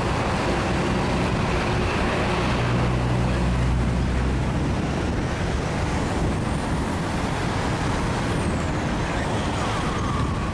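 Road traffic noise: a heavy vehicle's engine hum swells and fades in the first few seconds, over a steady rush of passing traffic.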